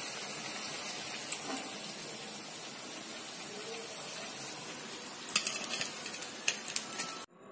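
Chicken cutlets sizzling steadily in hot deep-frying oil. About five seconds in, a wire spider skimmer clinks sharply several times against the pan and plate as a fried cutlet is lifted out. The sound then cuts off suddenly just before the end.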